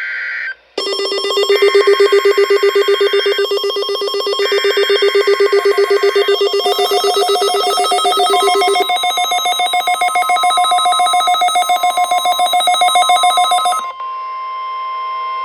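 NOAA Weather Radio weekly-test alert: three raspy SAME data bursts of the coded header, with a receiver's alert alarm ringing over them in rapid pulses. The alarm shifts pitch about nine seconds in and stops near the end. A steady tone starts partway through and keeps sounding after the alarm stops.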